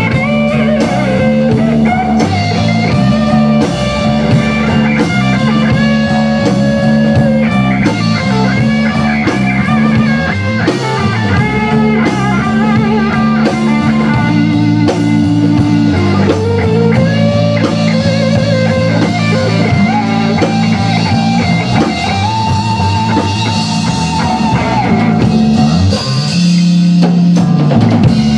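Rock band playing live: electric guitar and bass guitar over a drum kit, with a steady driving beat.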